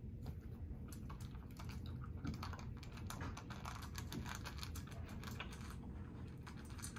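A pet's claws clicking and scratching: many faint, quick, irregular taps.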